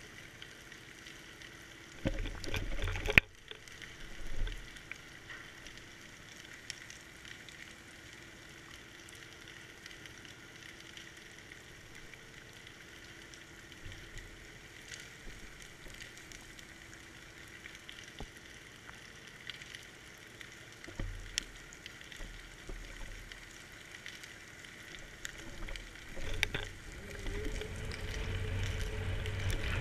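Underwater ambience picked up by a GoPro in its waterproof housing at depth: a steady crackling hiss with scattered clicks. There are a few louder knocks about two to three seconds in, and a low rumble builds near the end.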